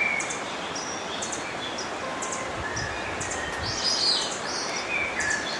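Wild birds chirping in short high calls over the steady rush of a river, with a louder run of chirps about four seconds in.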